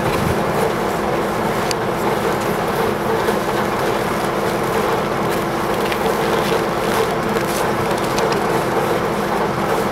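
TU7A narrow-gauge diesel locomotive's V12 diesel engine idling with the locomotive standing, a steady drone with a constant hum.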